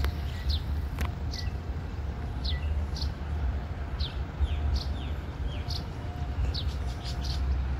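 Small birds chirping: a string of short, high, falling chirps repeated every half second or so, over a steady low rumble. A single sharp click about a second in.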